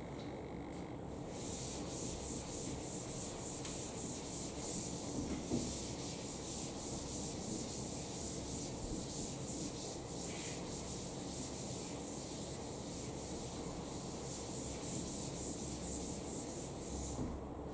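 Chalkboard duster wiping a chalkboard clean in quick back-and-forth strokes, a rhythmic scrubbing hiss that starts about a second in and stops near the end.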